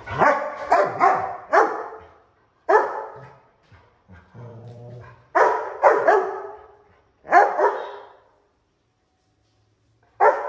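Pet dog barking: a quick run of about four barks, then single and paired barks a second or more apart, the last near the end.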